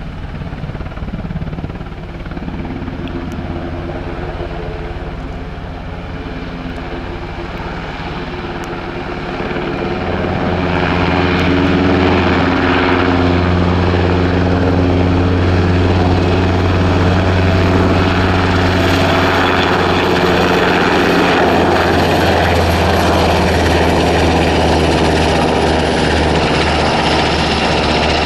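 NH90 twin-turboshaft maritime helicopter lifting off and climbing away, its rotors and turbines running steadily under take-off power. The sound swells about ten seconds in and stays loud.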